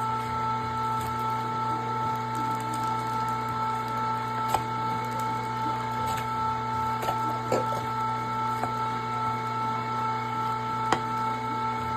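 Electric meat grinder running steadily, a constant motor hum and whine, with a few sharp clicks about four, seven and eleven seconds in.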